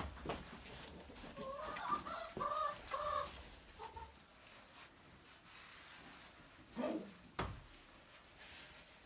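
A chicken clucking, a quick run of short calls between about one and a half and three seconds in, followed by two dull knocks about seven seconds in.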